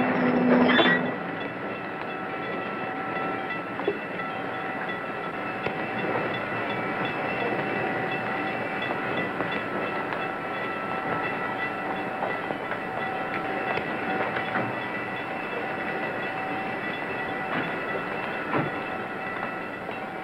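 Steam train running on the rails, a steady clattering rumble that is louder for about the first second and then drops to a lower, even level.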